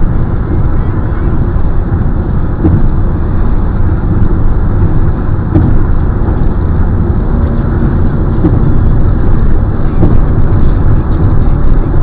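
Steady low rumble of a car driving at highway speed, tyre and wind noise heard from inside the cabin through a dashcam's microphone.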